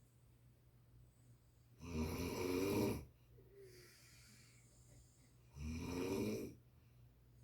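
A person snoring in sleep: two long, fluttering snores about four seconds apart, with quiet breathing between them.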